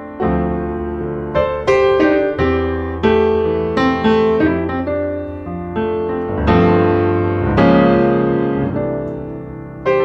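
Background piano music: single notes and chords struck one after another, each left to ring and fade.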